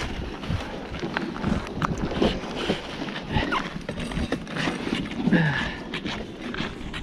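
Footsteps on snow-covered lake ice and ice-fishing gear being handled and packed up: a folding seat and other gear set down with irregular knocks, scrapes and clatter.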